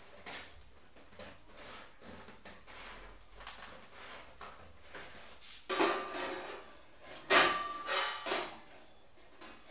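Faint rustling of a stiff paper pattern being worked by hand. Then, about six seconds in, louder clanks and knocks of a hand-formed sheet-metal gas tank being handled on a steel bench. The loudest knock, a little after seven seconds, leaves a short metallic ring.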